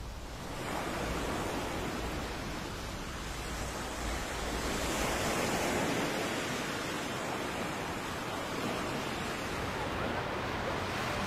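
Ocean surf washing up a sandy beach: a steady rush of breaking waves that swells a little about five seconds in.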